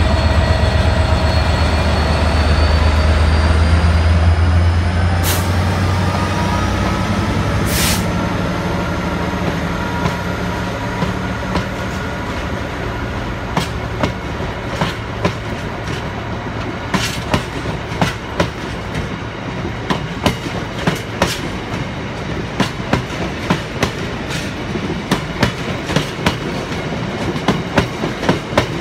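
A GB Railfreight Class 66 diesel locomotive's EMD two-stroke V12 engine drones loudly as it passes, fading after about six seconds. A rake of empty hopper wagons then rolls by, their wheels clicking over rail joints in a clickety-clack that grows sharper and more frequent through the rest of the pass.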